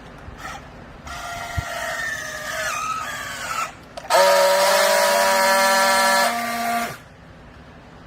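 Hydraulic compress baler running: a whine that sags slightly in pitch, then a loud, steady whine for about three seconds that cuts off suddenly.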